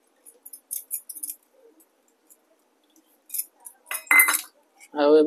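A metal spoon clinking and scraping against a stainless steel bowl as ground spice paste is worked into chopped banana stem: a few light clinks in the first second and a half, and a louder clink with a short ring about four seconds in.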